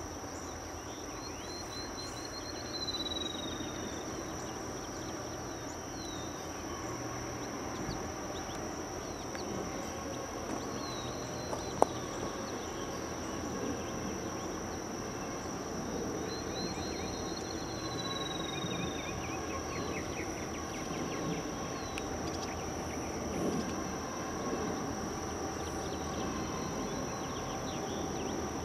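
Rural ambience: a steady high insect drone, with a songbird singing a descending trilled phrase twice, about fifteen seconds apart, over a low steady rumble. One sharp click about twelve seconds in.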